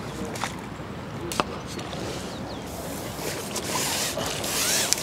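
Water splashing and running off a landing net as a bream is netted and lifted out of the lake, loudest near the end. Two sharp knocks come about half a second and a second and a half in.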